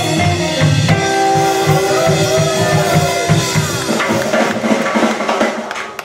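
Live rock and roll band playing the closing bars of a song, the drum kit loudest with held notes above it; the playing stops just before the end.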